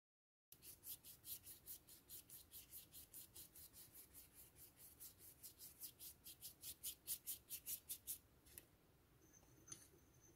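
Watercolour paintbrush scrubbing quickly back and forth on paper, about four or five strokes a second, stopping about eight seconds in. A few faint clicks follow near the end.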